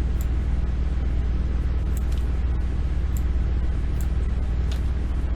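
Steady low hum of microphone background noise, with about five faint clicks spread through it, typical of a computer mouse being clicked.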